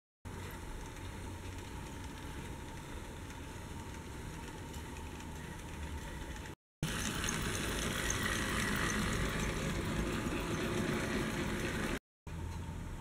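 HO-scale Mehano model train running on sectional track: a steady whir of the small electric motor with the rolling rattle of wheels on rail. It gets louder for the middle stretch, and the sound drops out briefly twice at cuts.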